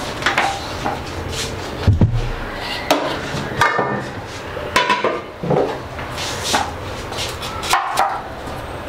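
Kitchen knife cutting vegetables on a cutting board: about ten irregular knocks of the blade on the board, a few with a brief ringing clink.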